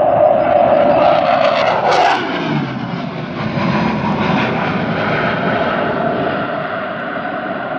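Jet noise of a MiG-29 fighter's twin Klimov RD-33 turbofans during a display climb. The roar drops in pitch about two seconds in as the jet passes, then carries on as a steady, slowly fading rumble.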